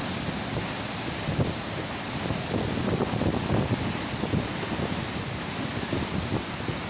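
Waterfall with a heavy flow of water, a steady loud rush of falling water, with uneven wind buffeting on the microphone.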